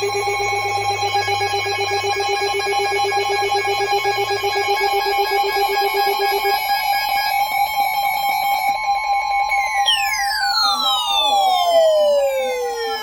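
An electronic alarm or siren tone: several steady pitches sound together, some with a fast pulse, and the lower ones drop out after about five to seven seconds. From about ten seconds in, the pitches slide steadily downward, like a siren winding down.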